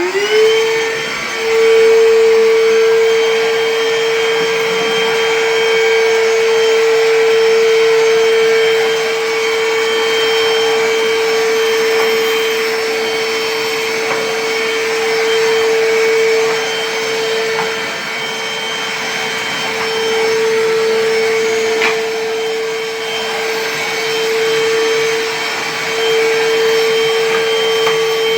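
Einhell cordless lithium-ion wet-dry vacuum running. Its motor finishes spinning up in the first second, then holds a constant whine over rushing air.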